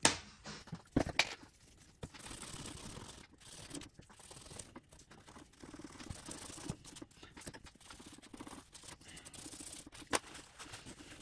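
Pen-style scratch brush scrubbing rust off a small rusty metal contact clip held against a paper towel: short bouts of dry scratching, broken by a few small clicks.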